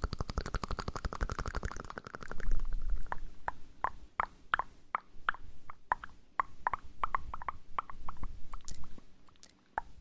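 Close-miked ASMR sounds: a quick, dense run of scratchy rubbing for the first two seconds or so, then separate soft clicks, two or three a second, with a short pause near the end.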